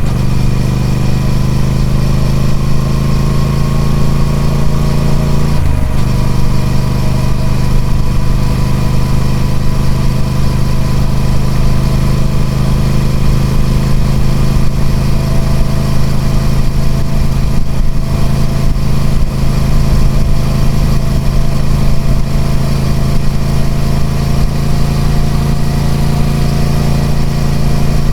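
Triumph Speed Twin 1200's 1200cc parallel-twin engine running through its stock exhaust, at a steady pitch. The pitch drops quickly once, about six seconds in, then holds and rises slightly near the end.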